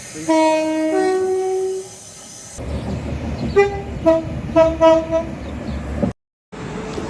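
Train air horn sounding a chord in one blast of about a second and a half. Then a train's low rumble with several short horn blasts in quick succession.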